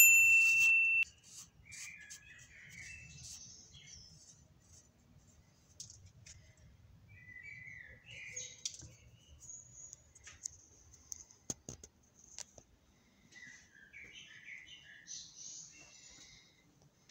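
A loud, steady, high-pitched beep lasting about a second, followed by faint, scattered bird chirps and a single sharp click partway through.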